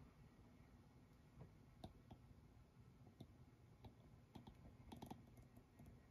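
Near silence: quiet room tone with faint, irregular small clicks, several of them bunched together a little after the middle.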